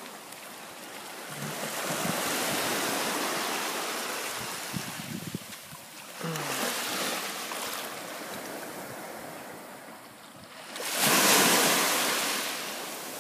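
Small waves breaking and washing up a sandy beach: three swells of surf, the last and loudest near the end.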